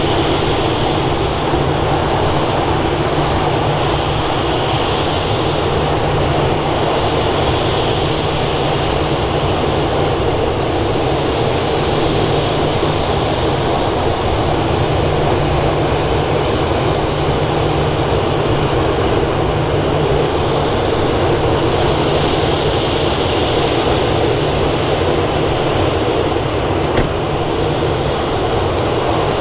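Steady jet aircraft engine noise, loud and unchanging, with a faint high whine on top.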